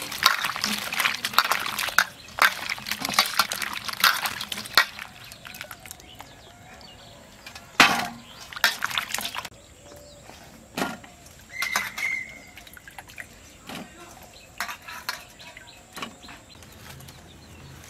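Hands swishing and splashing chunks of raw green pumpkin in a steel bowl of water for the first five seconds, washing out the sap. Then scattered knocks and clatters of wet pieces and steel bowls.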